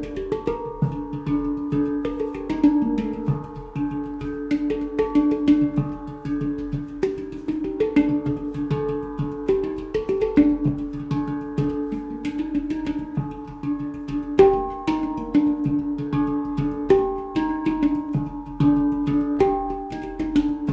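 Golden Sound handpan in a Pygmy scale, played with the hands: quick fingertip strikes on its tone fields, several a second, each ringing on in overlapping sustained steel notes with a low central note recurring throughout.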